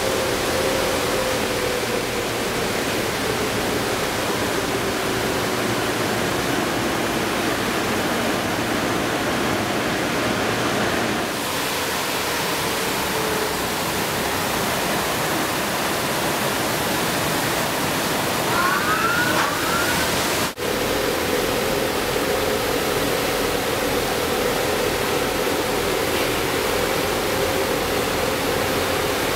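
Car wash air-wiper dryers running: a steady, loud rush of blown air with a low fan hum underneath, as the inflated blower bags push water off a car's side.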